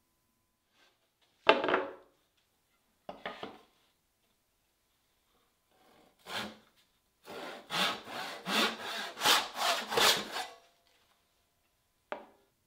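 Hand backsaw cutting through a wooden board: a run of quick strokes, about three a second, in the second half. Before it come a sharp wooden knock, the loudest sound, and a couple of single strokes; a short knock near the end.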